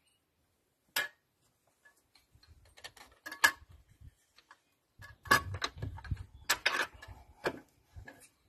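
Metal clinks and knocks from hand work refitting a starter motor in a car's engine bay: a sharp click about a second in, scattered small clinks, then a busier run of clinks with dull low thumps from about five seconds in.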